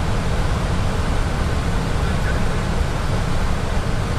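Steady flight-deck noise of an Airbus A320 in flight: a constant rush of airflow and air-conditioning, heaviest in the low end, with no distinct events.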